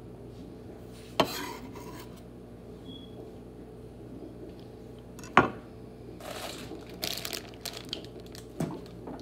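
Kitchen clatter at a cutting board: a sharp knock about a second in and a louder one about five seconds in, then the rustling crinkle of a plastic bag of fresh spinach being handled, with a few small clicks near the end.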